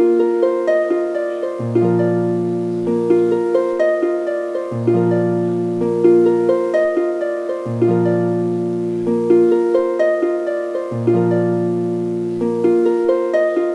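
Background music: quick plucked notes in a gently repeating pattern over a low held note that comes back about every three seconds.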